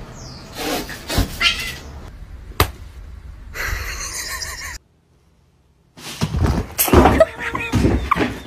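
Snatches of cat sounds from several short clips, broken by about a second of silence a little past the middle.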